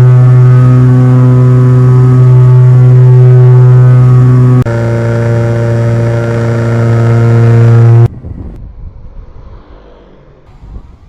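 Twin-motor RC model plane (Aerosky Beechcraft Duke B60) heard from on board: a loud, steady drone of its motors and propellers, with a small shift in pitch partway through. About eight seconds in it cuts off abruptly, leaving a much quieter rushing sound.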